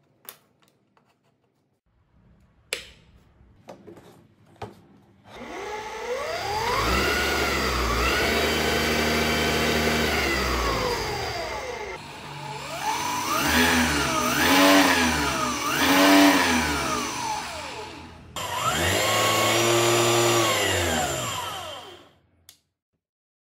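895 DC motor running a saw blade arbor and drill chuck through a toothed timing belt: a whine that rises as it spins up, holds speed, then swings up and down in pitch several times as its speed is changed, and winds down near the end. A few clicks and knocks of handling come before it starts.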